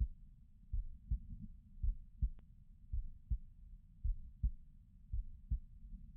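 A person's heartbeat heard close up: dull, low lub-dub thumps in pairs, a little over one beat a second, steady and even.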